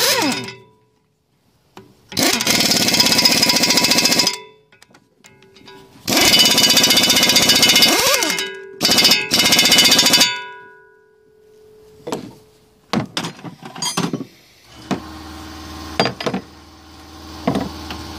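A power impact wrench running nuts down onto the chipper blade's bolts, in two bursts of rapid hammering, the first about two seconds long and the second about four. Metal clicks and knocks of tool handling follow, and a steady low hum starts near the end.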